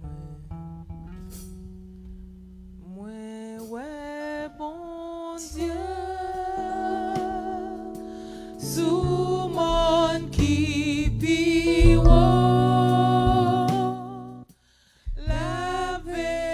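A woman singing a worship song with vibrato, gliding up into long held notes over live band accompaniment with guitar. The music drops out abruptly for a moment near the end, then comes back in.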